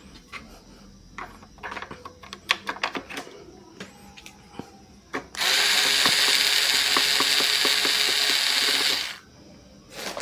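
Small items clicking and knocking as they are handled, then a small motor and gears whirring steadily for about four seconds before stopping abruptly.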